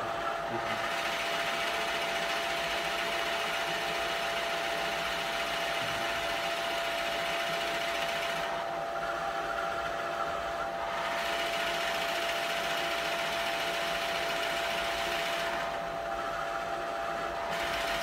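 Drill press running with a steady motor hum while its bit bores into a wooden cutting board. The cutting noise drops out twice, around the middle and near the end, as the bit is raised from the hole and lowered again, while the motor hum carries on.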